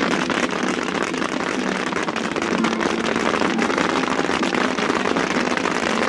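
Fireworks crackling densely and without pause: a rapid barrage of many small pops and crackles.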